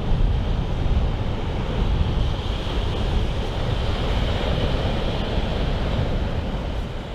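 Strong wind buffeting the microphone in a low rumble over a steady rush of waves; the sound starts to fade just before the end.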